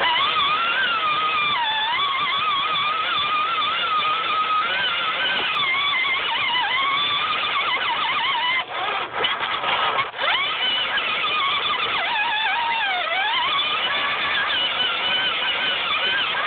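Small electric motor of a mini RC car running, a whine whose pitch wanders up and down with the throttle. It cuts out briefly a couple of times around nine to ten seconds in, and its pitch dips and climbs again near thirteen seconds.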